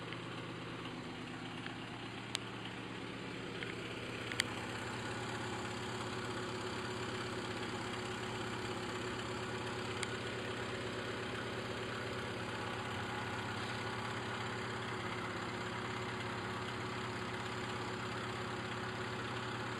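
1970 BMW 2002's four-cylinder engine idling steadily, a little louder from about four seconds in. A few sharp clicks sound over it.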